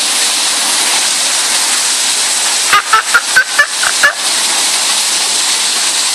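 Steady rushing hiss of falling water. Partway through, an animal in the exhibit gives a quick run of about seven short pitched calls.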